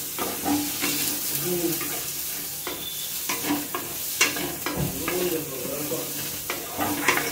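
Onion petals, baby corn and peas sizzling as they fry in a metal kadai, with a spatula stirring and scraping them and clicking against the pan every so often.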